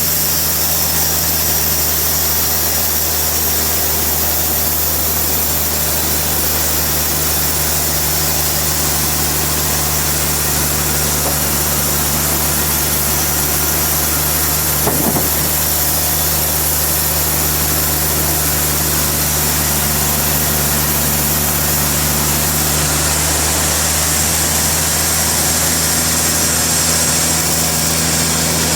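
Sawmill machinery running steadily, an engine's even drone under a constant high hiss, with one brief knock about halfway through.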